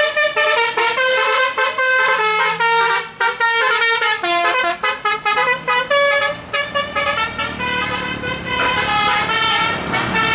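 A tour bus's telolet multi-tone horn playing a quick tune of short stepping notes, with the bus's engine and tyre noise rising in the second half as it passes.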